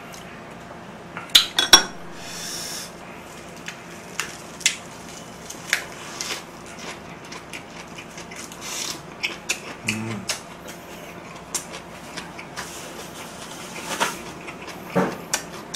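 Cutlery clinking and tapping against dishes in scattered small clicks, with a few sharper knocks about a second and a half in and again near the end.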